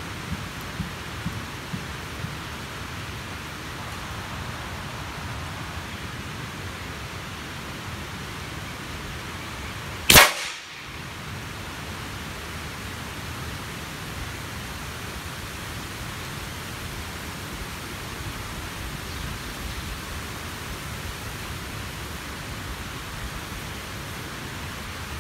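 A single sharp shot from a 9 mm (.35 calibre) M25 air rifle about ten seconds in, with a brief ringing tail, over a steady background hiss.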